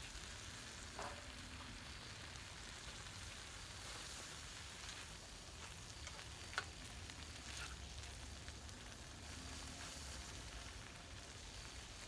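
Peas, carrots and onions frying in a pan with a faint, steady sizzle, stirred with a utensil that scrapes and clinks against the pan now and then; one sharp click comes a little past halfway.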